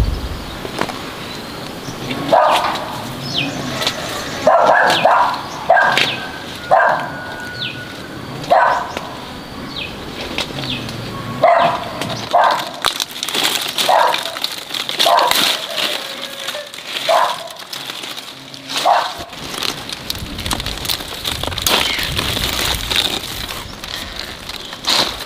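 A dog barking repeatedly, in short single barks at irregular intervals, falling silent a few seconds before the end. A steady high hiss builds behind it from about halfway.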